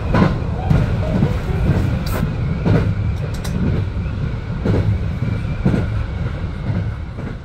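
Train running on rails: a steady low rumble with irregular sharp knocks, some in quick pairs.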